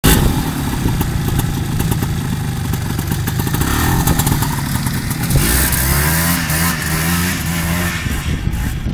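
ATV engine running close by, revved up and down several times in the second half, with scattered clatter over it.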